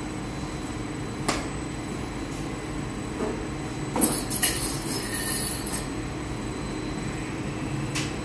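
Steady mechanical drone of bakery machinery, with a few sharp knocks and clinks. A hiss runs for a couple of seconds from about four seconds in.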